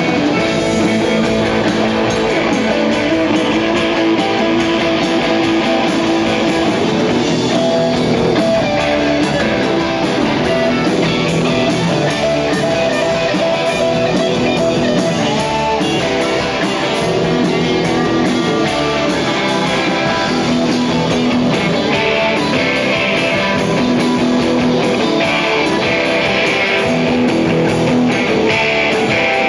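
Live rock band playing loud, with electric guitars to the fore.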